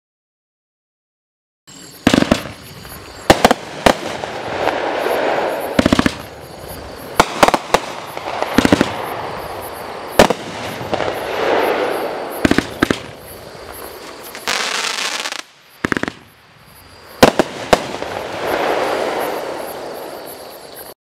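A 25-shot consumer firework cake firing, starting about two seconds in. It gives a string of sharp bangs from shots and bursts, with swells of hissing, crackling noise from the breaking effects between them. It stops abruptly near the end.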